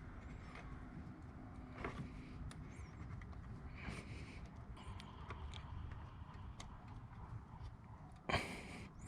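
Faint handling noise and small metal clicks of snap ring pliers working a snap ring onto a shifter cable bushing, with one louder sharp click near the end.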